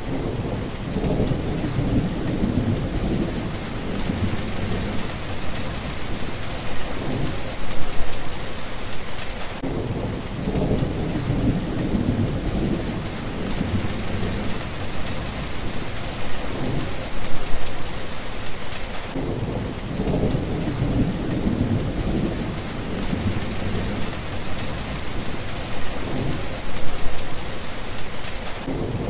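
Heavy rain pouring steadily, with rolling thunder rumbling low under it. The rumbles swell to louder peaks about every ten seconds and die back briefly twice.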